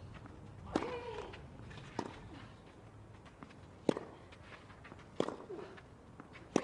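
Tennis rally on a clay court: about five sharp racquet-on-ball hits, roughly one every second and a half. Short falling vocal grunts follow some of the strokes.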